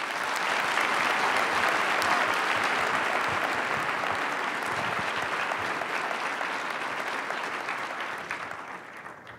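Audience applause, a dense clapping that swells quickly at the start, holds steady, and dies away near the end.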